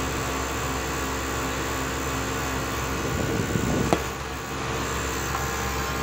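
CPU cooler fan running with one blade snapped off, giving a steady noisy hum with a vibration from the fan being out of balance. A brief click about four seconds in.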